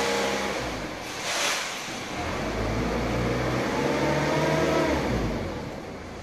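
Truck-mounted crane's engine revving up and down under load as the boom hoists a root-balled tree, easing off near the end, with a brief hiss about a second in.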